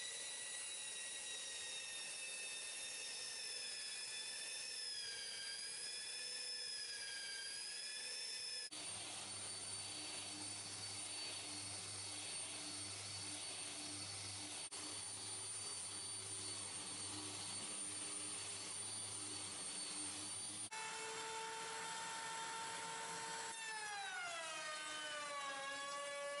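Power tools working solid wood, one after another with abrupt cuts: a Porter-Cable belt sander whining with a wavering pitch, then a random orbital sander humming from about 9 seconds in, then a router table whining from about 21 seconds in, its pitch dropping sharply near the end as the board is fed past the bit.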